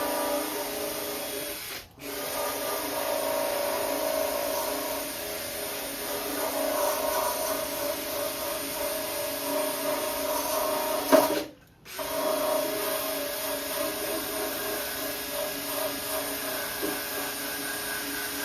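A small power tool running steadily while cleaning a part, with its pitch held level; it stops briefly twice, about two seconds in and near the middle.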